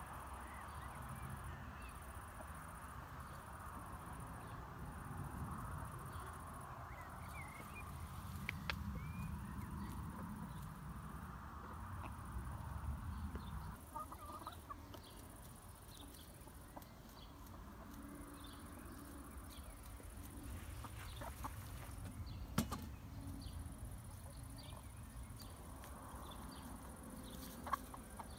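Domestic hens clucking softly as they forage, over a low steady rumble, with a few sharp clicks.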